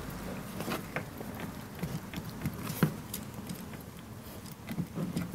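Scattered light clicks and knocks of a windshield wiper arm being wiggled by hand off its pivot shaft, with a few closer-spaced clicks near the end as it comes loose.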